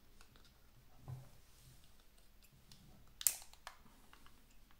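Plastic waterproof housing of a Sencor 3CAM 4K04WR action camera being handled and unlatched, with small plastic clicks: a sharp click a little past three seconds in and a softer one just after.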